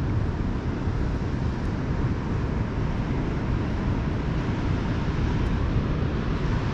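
Steady low rushing of wind and surf.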